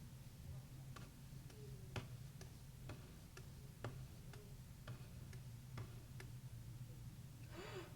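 A faint series of sharp clicks or taps, about two a second and not quite even, over a steady low hum. A short pitched, wavering squeak comes near the end.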